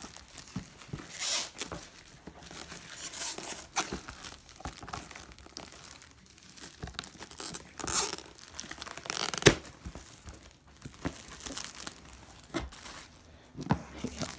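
Clear plastic shrink wrap being pulled and torn off a cardboard box, crinkling in irregular bursts, with one sharp snap about nine and a half seconds in.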